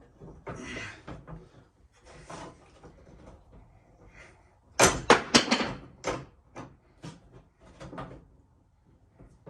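Clamps and a wooden block knocking and clacking as they are handled and set against the furniture, with a quick run of five or six loud, sharp knocks about five seconds in.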